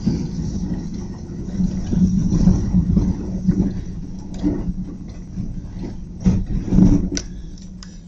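Snow plow truck's engine running under load, heard from inside the cab while the blade pushes snow, rising and falling in loudness. A couple of short clunks come near the end.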